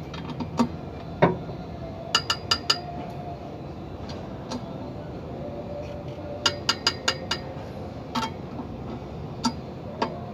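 Light metal-on-metal clinks from hand tools worked at a truck's clutch pressure plate and alignment tool. They come singly and in quick runs of four or five taps, about four a second, one run about two seconds in and another past six seconds, each with a short ringing edge.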